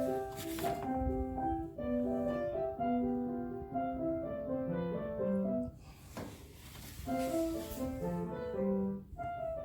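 Background instrumental music: a melody of short, clearly pitched notes with a soft break about six seconds in.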